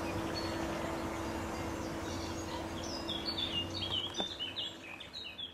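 A songbird singing a quick run of short, high, falling notes from about two and a half seconds in, over a steady background rumble with a low hum.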